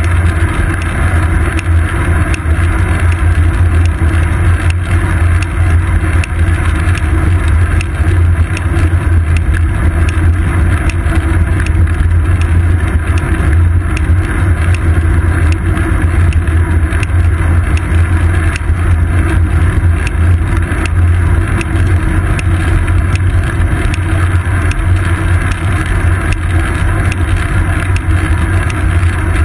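Steady, loud wind rush and low road rumble picked up by a GoPro Hero 2 mounted on a bicycle's seat post while riding, unchanging throughout.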